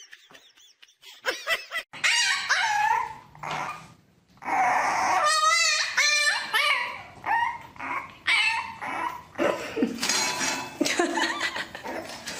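Dogs vocalizing: short whiny calls a couple of seconds in, then a French bulldog puppy barking and yelping over and over, with a warbling cry about five seconds in.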